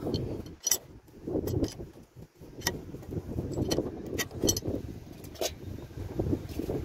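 Scattered metallic clinks of a large adjustable wrench against a truck's steering-linkage nut and fittings as it is fitted and worked, a few sharp irregular clicks over an uneven low rumble.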